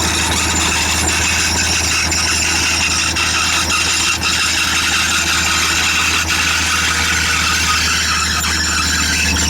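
Crawler bulldozer's diesel engine running steadily, with a few sharp clicks heard over it.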